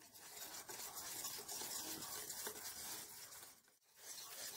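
Wire whisk beating cake batter in a stainless steel bowl: quick, steady scraping and ticking of the wires against the metal, with a brief pause near the end.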